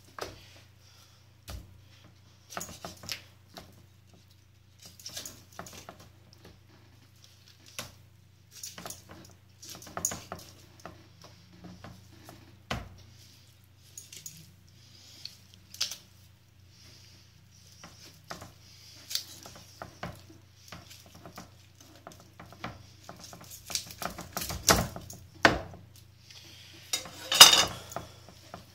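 Knife jointing a raw whole chicken on a wooden chopping board: scattered knocks and scrapes of the blade against the board as the legs and wings come off, with a louder metallic clatter near the end.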